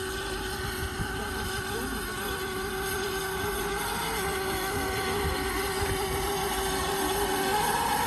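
Steam tank locomotive approaching at low speed, a steady running rumble with a held tone, growing slowly louder as it nears.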